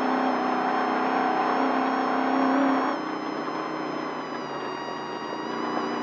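Desert race truck's engine running hard, heard from inside the cab. About three seconds in it eases off, dropping in pitch and loudness, then picks up again near the end.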